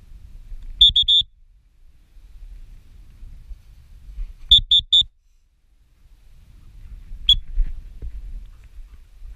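Gundog whistle blown close by in short, high pips: three quick blasts about a second in, three more around four and a half seconds, then a single blast. These are whistle commands to German pointing dogs in training. Low wind rumble on the microphone fills the gaps.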